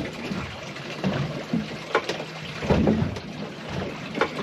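Water slapping against a fibreglass boat hull, with irregular knocks and splashes over a low steady hum.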